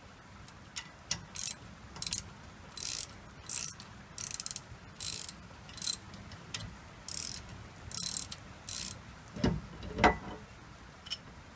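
Socket ratchet wrench clicking in short runs as its handle is swung back and forth, working a brake caliper bolt loose. Two duller knocks come near the end.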